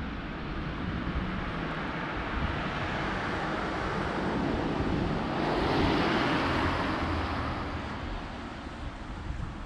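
Wind buffeting the microphone outdoors, with a broad rushing sound that swells to a peak about six seconds in and then fades.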